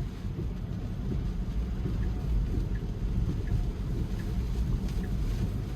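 Steady low road and rain rumble inside a Tesla's cabin as it drives on wet roads in a storm, with the turn signal ticking faintly about every three-quarters of a second.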